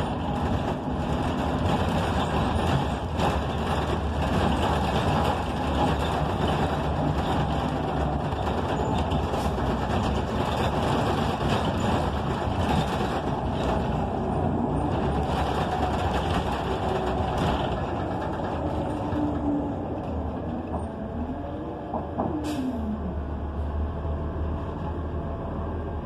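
Cabin noise of a NABI 45C transit bus under way: its Cummins Westport ISL G natural-gas engine, Allison automatic transmission and road noise run steadily. Over the last several seconds it eases off, with a whine sliding down in pitch, and a brief sharp hiss of air sounds near the end.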